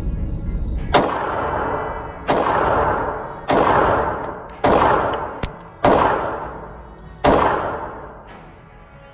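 Diamondback DB380 .380 ACP pocket pistol firing six shots, a little over a second apart, each sharp crack trailing off in an echo.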